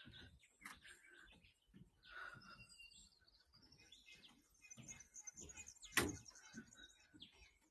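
Quiet footsteps on a walking-path surface, with faint bird chirps in the background and one louder step about six seconds in.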